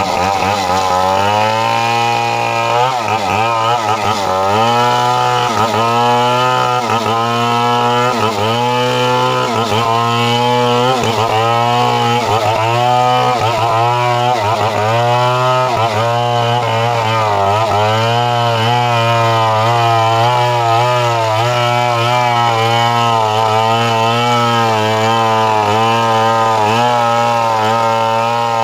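Two-stroke chainsaw running at high revs, its engine pitch dipping and recovering again and again as the chain loads up in the wood, then holding steadier towards the end.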